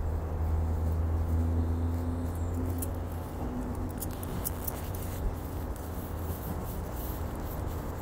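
Low, steady drone of a distant engine, loudest over the first few seconds and then fading into general outdoor noise, with a few faint ticks.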